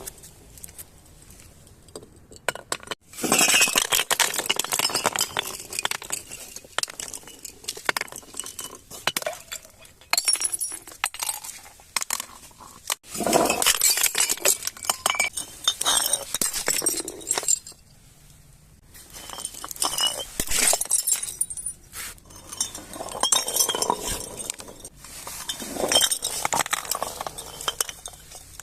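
Glass clinking and crunching in several long bursts of rapid clicks, with brief ringing tones: glass bottles and broken shards being crushed and knocked together.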